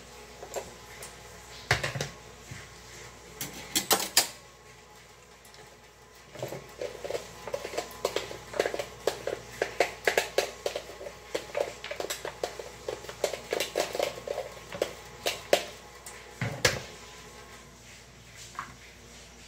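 Light clicks and quick taps of a plastic manual food chopper and a utensil as minced onion is scraped and knocked off the chopper's blades into a glass bowl: a couple of sharp knocks early, then a fast run of light taps for about ten seconds.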